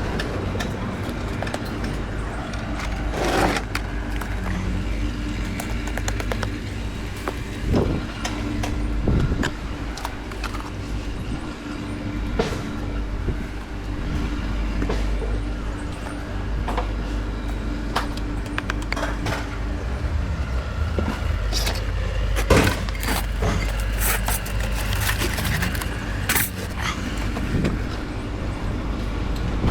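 A steady low engine rumble with many scattered sharp knocks and clanks on top.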